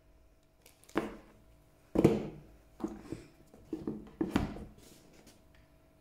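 Handling noises as a pair of sneakers is lifted from a cardboard shoebox lined with tissue paper and set down on the box: a run of knocks and short rustles, the loudest about two seconds in.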